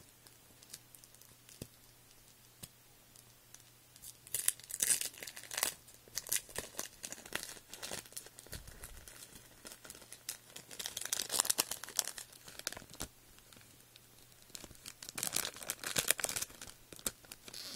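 Tissue paper and packaging crinkling and rustling as they are handled, in three bouts of a second or two each with quiet between.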